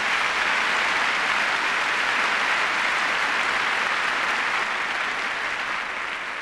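Large lecture audience applauding, a dense steady clapping that begins to die down near the end.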